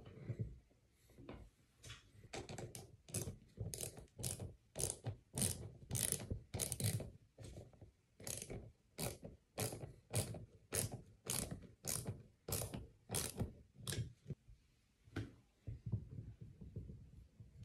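Hand ratchet clicking in steady repeated strokes, about two clicks a second, as it tightens a hose clamp to seal the lava lamp's cap. The clicking stops near the end, leaving a few softer knocks.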